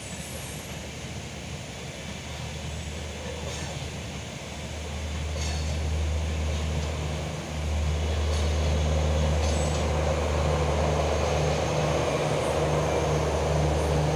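Red-and-grey LHB passenger coaches rolling past on the track: a steady low rumble of wheels on rail with a few sharp clicks. It grows clearly louder about seven and a half seconds in, as the rear of the train goes by.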